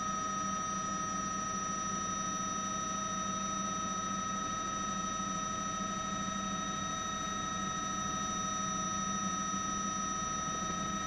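Steady mechanical drone with several constant high whining tones over a hiss, typical of a news helicopter's turbine and gearbox heard on the aerial camera's feed.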